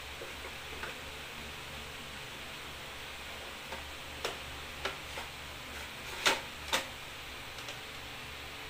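Plastic housing and filter cartridge of a small Arctic Air evaporative cooler clicking and knocking as the cartridge is fitted and the side panel is pressed shut: a few light knocks, then two sharper snaps half a second apart, over a steady low hum.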